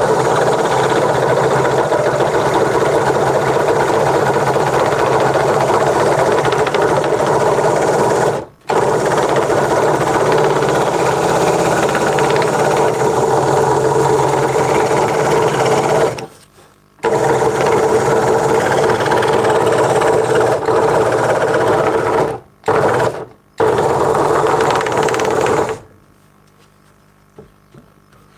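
Craftsman 22-inch scroll saw running, its blade cutting a small board. The steady rapid chatter breaks off abruptly a few times and drops away near the end.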